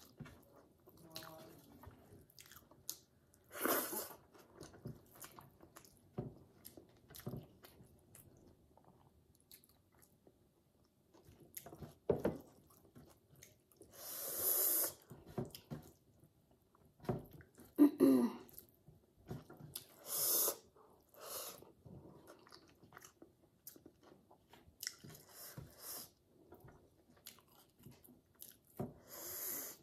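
Close-miked chewing and lip smacking of a person eating a rice-and-curry meal by hand, with small wet clicks. A few short, louder, breathy hissing bursts come now and then.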